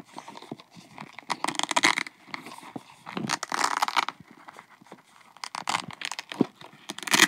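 A children's fabric SpongeBob wallet being worked open by hand. Its fastenings give four short rasps of rapid clicking: about a second in, past three seconds, at five and a half seconds, and at the very end.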